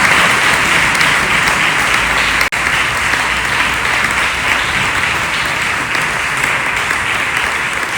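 A congregation applauding steadily, the dense clapping broken by a momentary dropout about two and a half seconds in.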